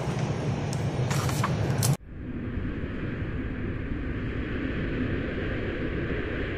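Steady outdoor airport noise: a low rumble with a few crackles that cuts off abruptly about two seconds in, giving way to a softer, even hiss with a faint hum.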